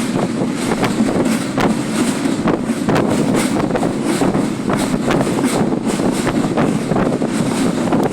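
Passenger train running at speed, with a steady roar and irregular knocks and rattles, and wind buffeting the microphone.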